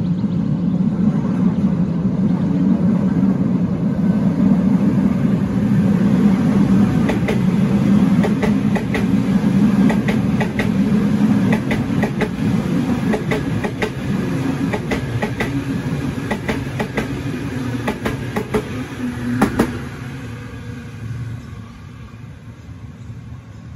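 Sydney Trains Waratah electric suburban train passing close by, with a steady low hum and rumble and a run of sharp wheel clicks over the rail joints. The clicks end with the loudest one, and the sound fades soon after as the train draws away.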